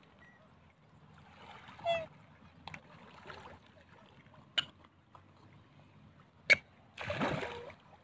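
Black swans and Eurasian coots crowding at the shore to be fed: water splashing and lapping, with several short sharp clicks and a brief noisy burst about seven seconds in.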